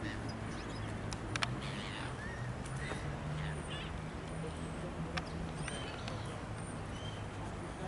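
European goldfinches calling: short high chirps and twittering notes scattered through, over a steady low hum, with a few sharp clicks.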